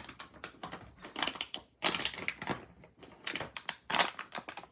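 Plastic water-bottle squishy filled with soapy water being squeezed by hand, its thin plastic crackling and crinkling in several short bursts.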